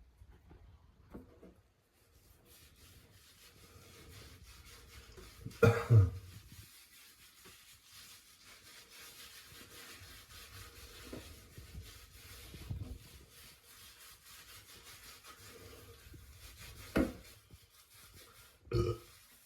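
A man burping: one loud burp about six seconds in and two shorter ones near the end. Between them, faint steady hiss and rubbing from washing in a shower.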